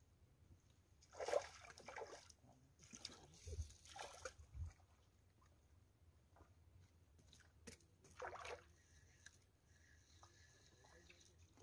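Small hooked tilapia splashing at the water's surface as it is reeled in and lifted out, in short bursts between about one and five seconds in, with one more brief burst near eight seconds.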